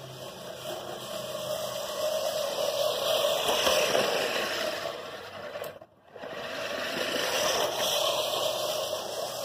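American Lawn Mower Co. 1304-14 14-inch five-blade push reel mower being pushed through grass, its spinning reel blades whirring as they cut. It gets louder as the mower comes close, breaks off briefly about six seconds in, then runs again.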